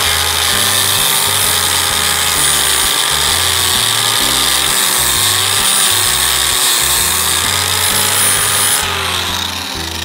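Drill Master 4-1/2-inch angle grinder with a sandpaper flap disc grinding the rust off a square steel tube, the motor whine wavering as it is pressed into the metal. About nine seconds in the grinder is switched off and its whine falls away as it winds down.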